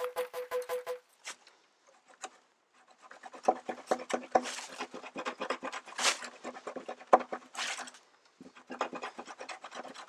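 A small silcrete stone flake sawing back and forth across the fibres of a green giant bamboo culm: a rapid scratching rasp with a hollow ring from the stem. In the first second there are quick ringing taps, then a pause, and the sawing resumes, with a short break near the end.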